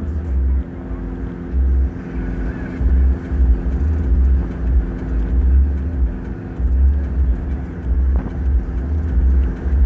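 Steady engine hum and road noise inside a vehicle cruising on a highway, under a heavy low rumble that swells and fades unevenly.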